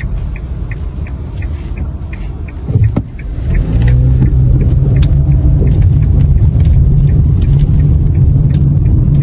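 Car engine and road rumble heard from inside a moving car, growing louder and steadier about three and a half seconds in, after a brief knock. A faint regular ticking runs underneath.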